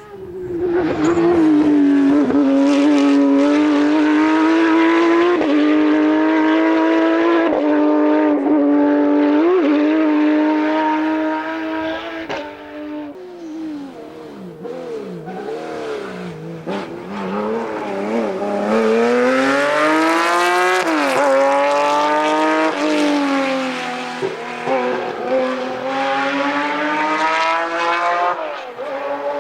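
Rally car engine at high revs under hard throttle with short breaks for about ten seconds, then revs dropping and wavering through a slower section before climbing hard again twice.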